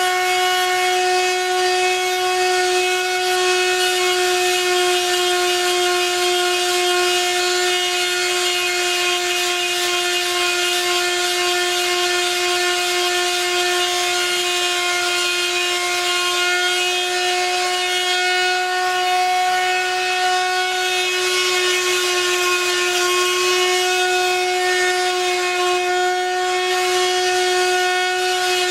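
Handheld electric sander running at a steady high-pitched whine, its pad rubbing against the edge of an oak board as the handle of a strop paddle is sanded and shaped.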